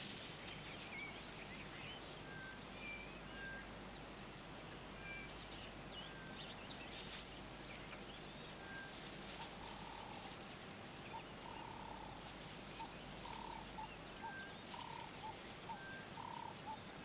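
Faint animal chirps and short whistled calls over a low steady hiss, with a run of short repeated notes from about ten seconds in.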